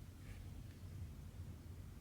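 Soft, brief rustle of thread drawn through cross-stitch fabric about a quarter second in, over a faint, steady low hum of room tone.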